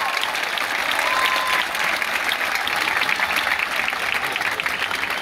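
Large audience applauding: dense, steady clapping from a full house.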